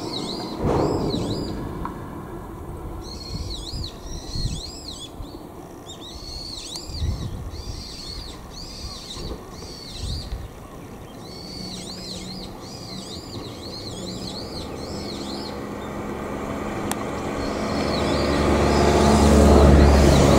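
A small bird calls in quick runs of a short, repeated arched chirp, several runs with pauses between. Near the end a vehicle's rumble builds up and becomes the loudest sound.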